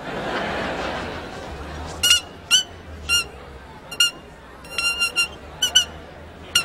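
A string of about a dozen short, high-pitched squeaks in an uneven rhythm, several in a quick run about five seconds in, after a brief swell of noise at the start.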